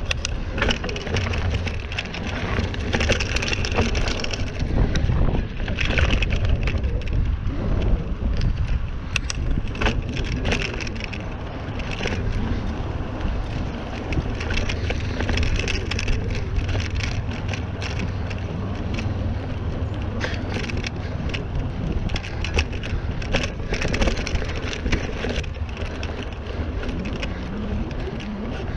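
Mountain bike riding along a dirt trail: a steady low rumble of tyres and rolling, with frequent sharp clicks and crackles from the tyres and the bike over the rough ground.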